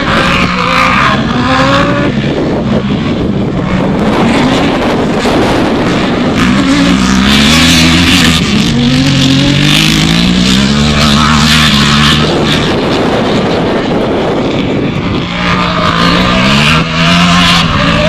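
Autocross race cars running hard on the track, the engines revving with pitch climbing and dropping again and again, over a loud rushing noise.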